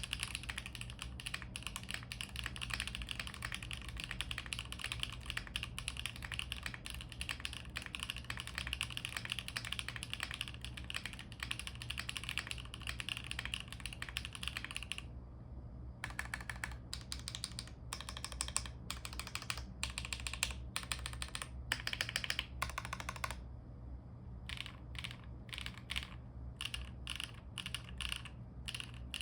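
Mechanical keyboard with stock HMX WJBY Lotus linear switches, Bump-On O-rings, a carbon fibre plate and doubleshot ABS Cherry-profile keycaps, typed on quickly and continuously for about fifteen seconds. After a short pause come separate groups of presses on the larger stabilized keys, which have lubed, plate-mounted stabilizers, as a stabilizer sound test.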